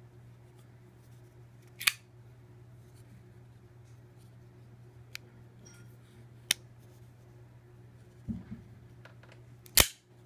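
Matt Diskin Fire folding knife being worked, its blade opening and closing with sharp metallic snaps: a loud one about two seconds in and another near the end, with lighter clicks between. A couple of soft handling knocks sound shortly before the last snap, over a steady low hum.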